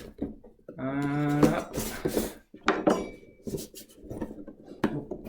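A kitchen knife cutting open a cardboard box: a hiss of slicing tape about two seconds in, then scattered scraping, clicks and rustling of the box. A short hum of voice comes about a second in.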